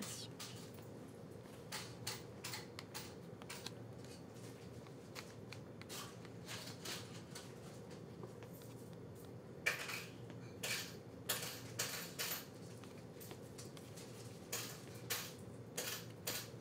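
Irregular light clicks and clatter of goods being handled at a supermarket checkout, over a steady low hum.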